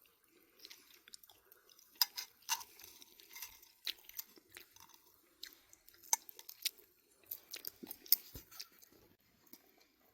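A person chewing food close to the microphone, with irregular crisp, crunchy clicks and smacks.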